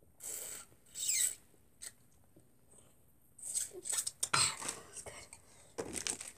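Short slurping sucks at a small plastic bag of liquid held to the mouth, two in the first second or so. Then plastic bag crinkling and rustling as the bags are handled.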